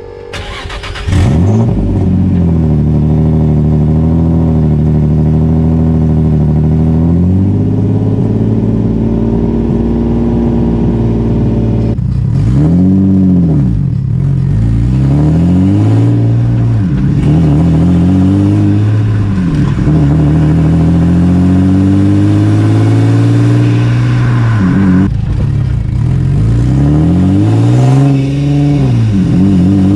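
Rear-mounted-turbo Infiniti G35's V6 engine started from cold, catching about a second in and settling into a fast cold idle that drops lower after several seconds. From about twelve seconds in it is revved again and again, the pitch rising and falling each time. It is heard at the turbo's inlet velocity stack, with no blow-off valve fitted.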